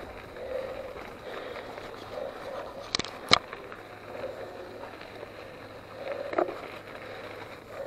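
Mountain bike rolling over a dirt and gravel track: a steady crunch and rattle of tyres and frame, with two sharp knocks close together about three seconds in and a smaller one near six seconds.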